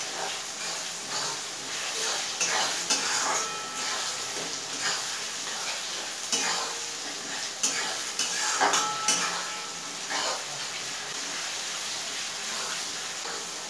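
Onion, tomato and spice masala sizzling in oil in a metal kadai as it is fried down, while a metal spatula stirs it, with irregular scrapes and clinks against the pan.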